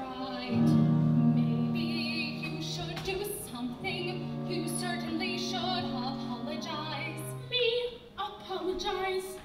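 Opera singing with instrumental accompaniment: a woman's voice over sustained low notes, which drop away about seven and a half seconds in.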